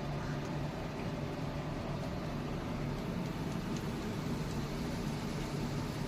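Steady low hum and hiss from a lit gas stove burner heating a pan of oil.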